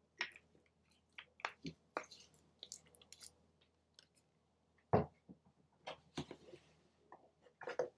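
Scattered small clicks, taps and soft squishes of hands handling takeout food and its packaging, with one louder knock about five seconds in.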